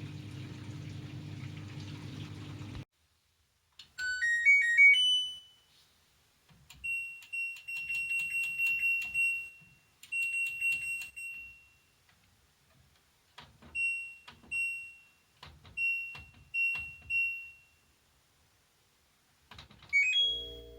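LG FH0M7WDS front-loading washing machine running with a steady hum that cuts off suddenly about three seconds in. After a pause the machine plays a short rising electronic melody, then a string of high single-pitch beeps, each with a click, as on the control panel being operated. Near the end comes another short rising melody.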